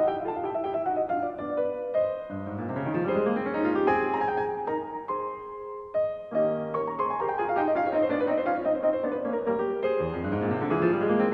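Background piano music: flowing arpeggios that sweep down and then back up, in two repeating phrases.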